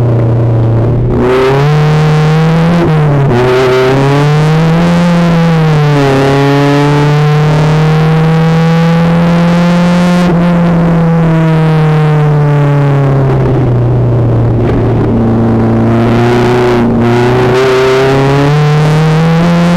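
Renault Twingo race car's four-cylinder engine heard from inside the cabin, pulling hard and changing revs through the corners. The pitch drops sharply about three and six seconds in, climbs steadily, sags slowly, then rises again near the end.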